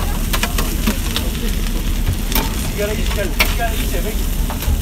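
Chopped kokoreç (lamb intestine) with tomatoes and peppers sizzling on a flat steel griddle, with sharp clicks and scrapes of a metal utensil against the hot plate.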